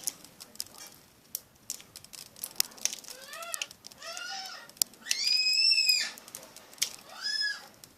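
Slime being squeezed and worked, giving sharp wet clicks and pops throughout. Four short high-pitched cries that rise and fall in pitch come through over the clicking; the third, a little after the middle, is the longest and loudest.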